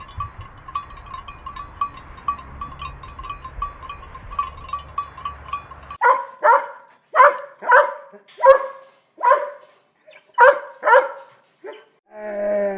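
A dog barking: about ten short barks, some in quick pairs, starting about halfway through. Before that there is only a faint steady background with a light regular ticking, and a drawn-out pitched call begins near the end.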